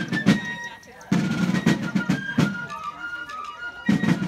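Fife and drum corps playing a march: shrill fifes carry the tune over field-drum strokes and rolls. The drumming drops out briefly about a second in, then comes back.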